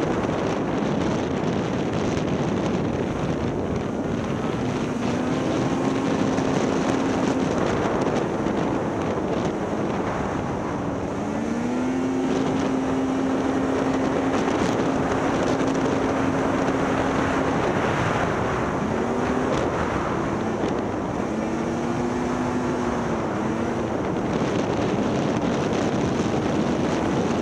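Snowmobile travelling at speed: wind rushing over the microphone with the engine's drone underneath, its pitch rising and falling with the throttle and held steady for several seconds in the middle.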